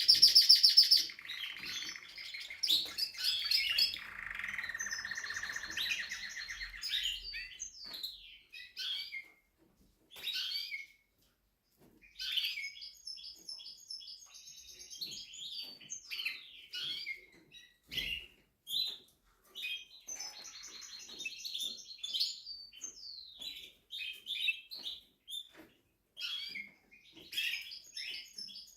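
Spanish Timbrado canary singing: a varied song of rapid trills, rolling phrases and chirps. It starts with its loudest high trill and pauses for about a second midway.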